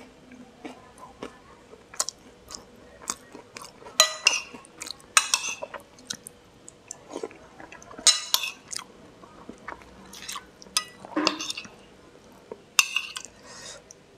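Close-miked chewing and mouth sounds of a person eating from a bowl: a run of short wet clicks and smacks, with a few louder bursts, and now and then a metal spoon tapping the ceramic bowl.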